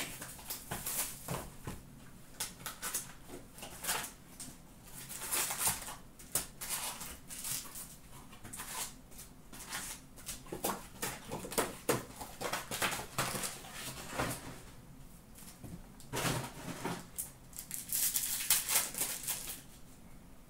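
Trading card packs being torn open by hand: wrappers crinkling and ripping, and cards sliding and riffling as they are pulled out and sorted. The rustling comes in irregular clusters, heaviest about five seconds in and again near the end.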